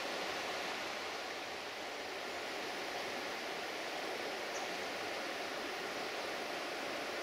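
Steady, even rushing outdoor background noise with no distinct events and no train.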